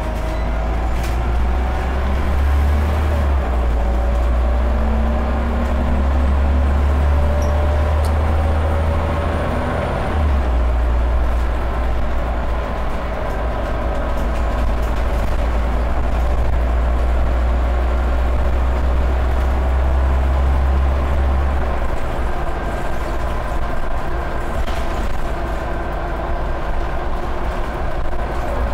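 Scania OmniCity single-deck bus heard from inside the saloon while driving along at speed: a steady engine and drivetrain drone with a deep rumble and a rising and falling whine over road and tyre noise. The rumble shifts about 3 and 10 seconds in and drops away about 22 seconds in as the bus is driven hard.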